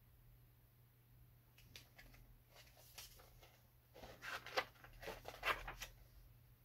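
Paper pages of a picture book being handled and turned: faint scattered rustles and crinkles, growing into a louder flurry of page handling about two-thirds of the way through.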